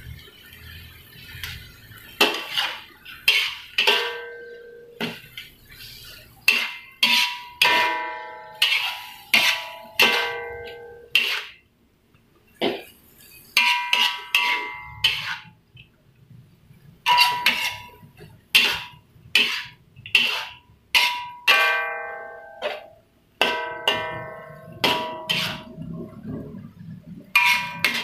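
Metal spatula striking and scraping an aluminium wok while stir-frying water spinach, each clank ringing briefly. The clanks come in quick runs with short pauses between them.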